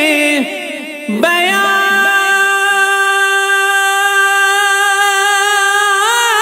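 Male voice singing an Urdu naat. After a brief dip, he holds one long, steady note for about five seconds, and near the end it breaks back into a wavering, ornamented melody.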